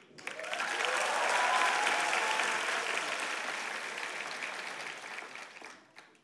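Studio audience applauding, swelling quickly at the start and then fading out toward the end.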